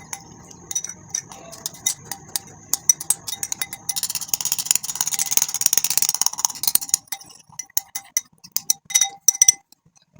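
Spoon clinking and scraping against a bowl in quick, irregular strokes while stirring a thick mixture, busiest in the middle.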